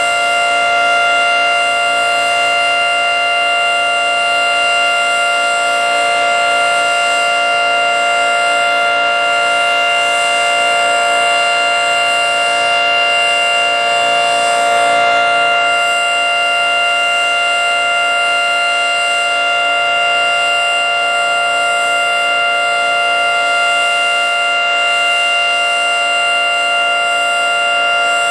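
Federal Signal 3T22 outdoor warning siren sounding its steady alert: a loud, multi-note chord held at constant pitch with no rise or fall.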